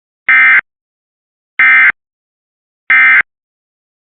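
Emergency Alert System end-of-message signal: three short SAME digital data bursts, each about a third of a second long and about a second apart, marking the end of the alert message.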